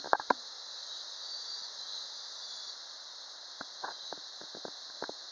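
Steady high-pitched drone of an insect chorus, with a few sharp clicks right at the start and scattered short ticks in the second half.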